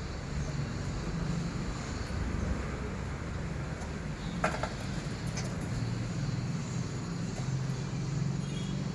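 Steady low hum of a vehicle's running engine, with a short cluster of sharp clicks about halfway through.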